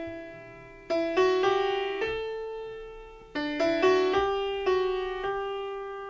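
Instrumental background music: a slow melody of piano-like notes that strike and ring out, fading between small groups of notes.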